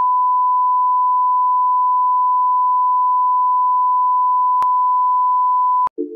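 Steady 1 kHz reference test tone, the line-up tone that goes with broadcast colour bars, held at one pitch and cutting off just before the end. A faint click about four and a half seconds in.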